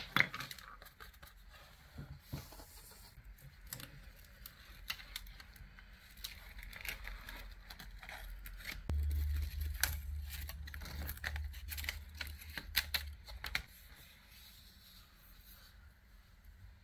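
Sticker paper's backing being peeled off the sheet with a toothpick, with crisp tearing and crinkling of paper and many small taps and clicks. A sharp click right at the start, and a low hum for a few seconds in the middle.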